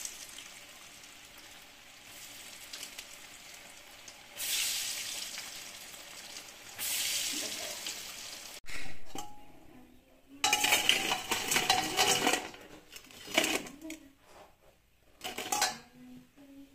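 Lentil bara frying in a pan of hot oil, a steady sizzle that swells louder twice. It breaks off suddenly, and metal utensils clink and scrape against the pan in a quick run, then a few separate clinks.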